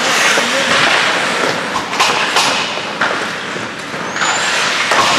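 Ice hockey play: skate blades scraping and carving on the ice in a steady hiss, with a few sharp clacks of sticks and puck and a brief high squeak about four seconds in.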